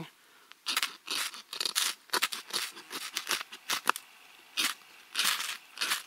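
A tiny FireFly ferro rod scraped hard with a striker in a run of quick rasping strokes, several a second at first and slower toward the end, throwing sparks onto spruce shavings to light them.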